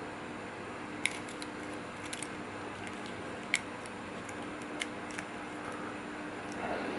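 Scattered small, sharp clicks and taps of tiny camera parts and a toothpick being worked while fitting the CCD ribbon cable, the loudest about three and a half seconds in, over a faint steady hum.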